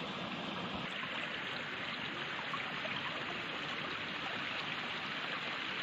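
A stream's running water, a steady even hiss.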